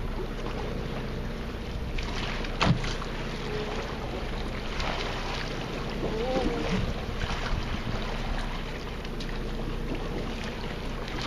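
Steady low hum of a boat's running machinery with some wind on the microphone. A single sharp knock comes about two and a half seconds in, and a short wavering whine a little past the middle.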